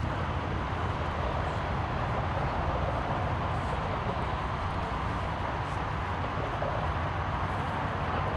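Steady low rumble of vehicle engines, even throughout, with no separate knocks or tones.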